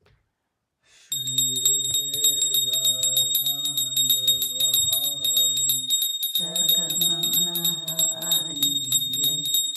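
Bells rung rapidly and continuously, starting abruptly about a second in, over voices singing a devotional chant; the singing breaks off briefly about six seconds in and starts again.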